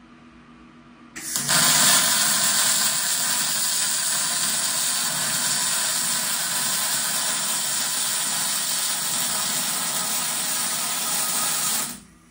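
MIG/MAG welding arc from an OTC Daihen CPTX-i 300C running at 220 amps on 1.0 mm steel wire: a loud, steady sizzle that strikes up about a second in and cuts off just before the end.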